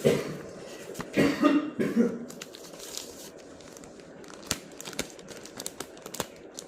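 A few loud short coughs in the first two seconds, then scattered light clicks and taps of packaging and a power bank being handled.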